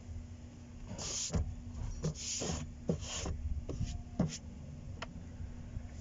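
Several short scraping, rustling handling sounds, about five of them from about a second in to past four seconds, over a faint steady low hum.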